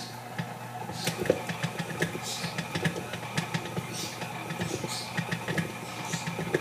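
KitchenAid stand mixer running, its motor humming steadily as the beater churns stiff, floury cookie dough in the steel bowl, with a rapid, irregular clatter of the beater and dough against the bowl.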